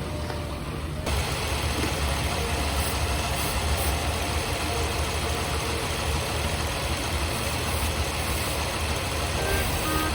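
A 2015 Dodge Ram 1500's 3.6L V6 engine idling steadily while it has a cylinder 3 misfire, with a steady rushing noise coming in about a second in.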